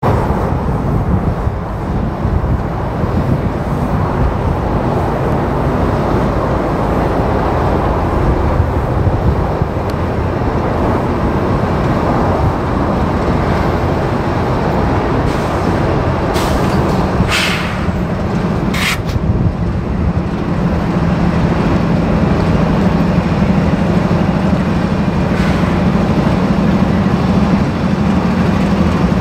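Union Pacific diesel locomotives pulling a freight train, their engines running steadily under load, with the low engine tone growing stronger about two-thirds of the way through as they draw near. Two short hisses of air come a little past the middle.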